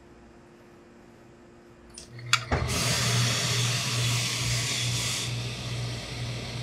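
A few clicks about two seconds in, then a professional steam iron hissing out a loud burst of steam for about two and a half seconds. A steady low hum starts with the clicks and carries on after the hiss stops.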